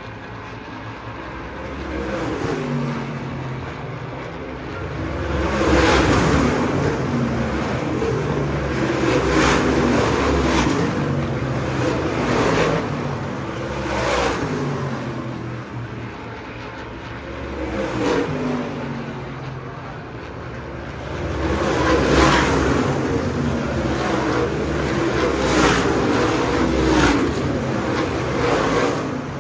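ISMA winged supermodified race cars, big-block V8 open-wheel cars, running at racing speed around the oval. Their engine notes rise and fall in repeated swells every few seconds as cars pass.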